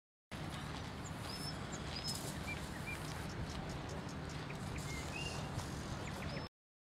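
Outdoor ambience: a steady low rumble and hiss with a few short, high bird chirps scattered through. It cuts in just after the start and cuts off abruptly near the end.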